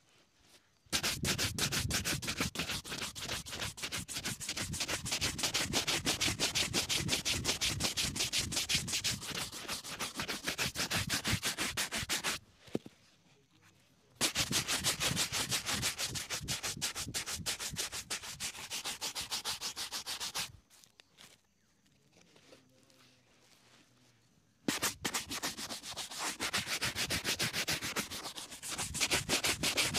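A hand-held shoe brush stroked fast back and forth over a leather boot, buffing the polish to a shine. The brushing comes in three long bouts of quick strokes, with two short pauses.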